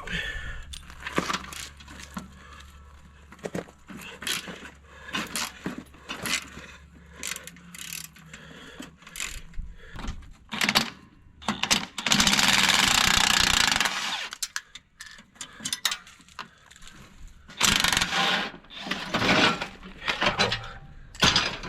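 Tools working on an excavator's track undercarriage: scattered metal clanks and knocks, with a power tool running steadily for about two seconds midway and a few shorter runs near the end.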